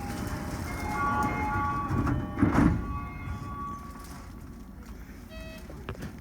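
A station departure melody plays as a chain of short electronic chime notes over the low rumble of the train and platform. There is a brief loud noise about two and a half seconds in and a short electronic tone near the end.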